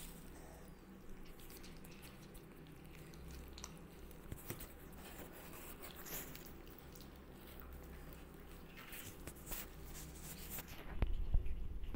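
Faint scattered clicks, scratches and rustles of kittens moving about in a cardboard box, over a low steady hum. Near the end a louder low rumble with a few sharp knocks comes in.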